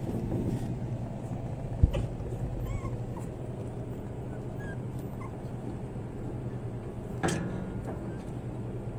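American Eskimo puppies whimpering and squeaking in short, high cries, with one louder yelp about seven seconds in. A single sharp knock sounds about two seconds in.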